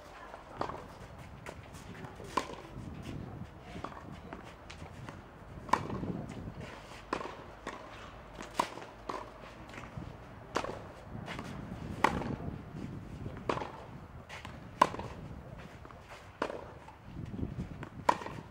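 Tennis balls struck by rackets in a baseline rally: sharp pops about every second and a half, with footsteps on the clay court between shots.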